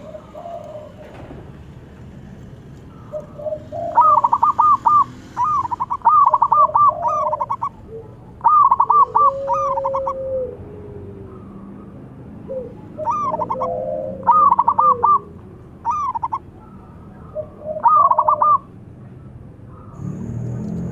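Zebra dove (perkutut) cooing: about seven bursts of quick rippling coo notes, with a lower drawn-out coo twice among them.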